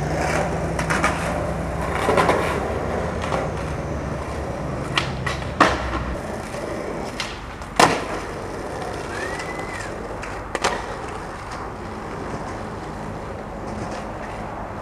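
Skateboard wheels rolling on asphalt, a steady rumble that is heavier for the first six seconds. Over it come several sharp cracks of the board's tail and wheels snapping against the ground, the loudest about eight seconds in. A brief whistle-like tone rises and falls about nine seconds in.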